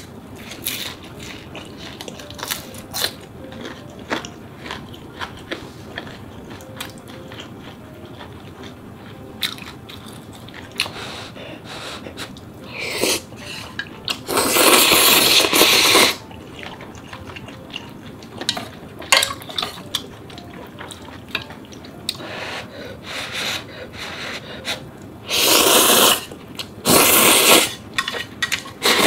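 Close-miked eating sounds: chewing with small wet mouth clicks, then loud slurps of ramen noodles about halfway through and twice more near the end.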